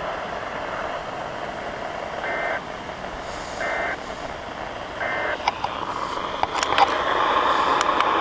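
Weather radio receiver playing a NOAA Weather Radio broadcast under heavy static: three short warbling data bursts of the EAS/SAME code, about a second and a half apart. Short bursts like these are the end-of-message code of a Required Weekly Test. A few clicks follow near the end.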